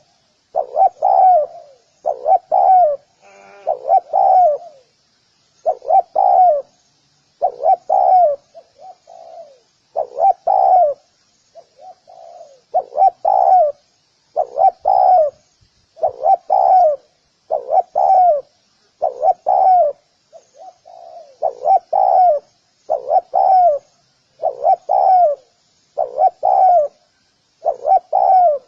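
Spotted dove cooing over and over, its low notes coming in close pairs about every one and a half seconds. Faint high chirping of small birds runs underneath.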